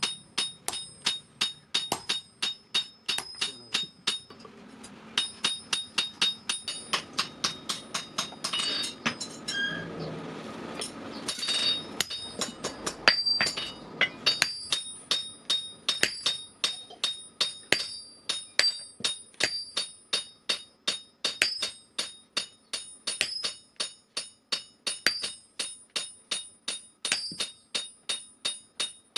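Steady hammer blows on steel at the anvil, about three a second, each stroke ringing with a high metallic tone. Through the middle of the stretch a rushing noise runs under the blows.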